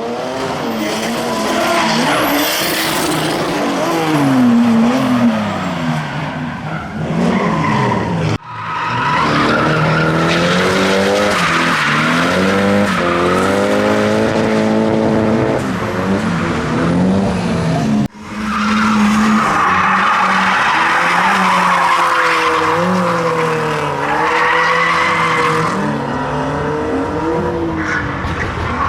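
Drift cars' engines revving up and down hard while their tyres squeal in long slides. The sound breaks off abruptly twice and picks straight up again.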